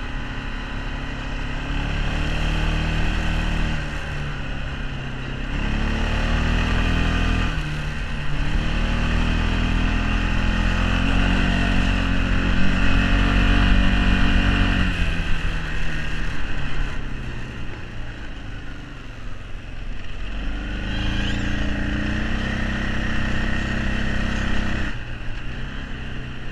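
Arctic Cat 454 ATV's single-cylinder four-stroke engine running under way on the trail, its pitch and loudness rising and easing off several times as the throttle opens and closes, loudest about halfway through.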